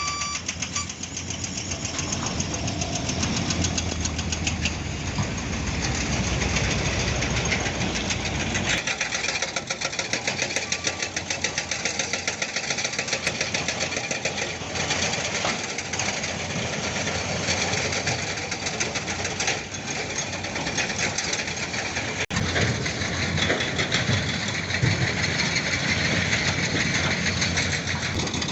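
Heavy diesel construction machinery running, with a fast, even knocking pulse and a deeper rumble that drops away about nine seconds in.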